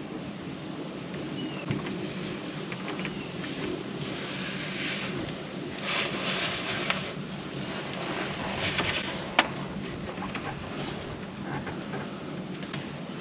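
Steady wind hiss, with bursts of rustling from people shifting inside a wooden deer stand and a single sharp click about nine seconds in.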